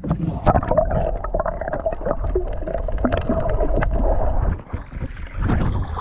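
Muffled gurgling and sloshing of sea water heard through a camera microphone dunked underwater beside a boat, with a steady hum running through it. About five seconds in the camera breaks the surface and open-air splashing and wind noise return.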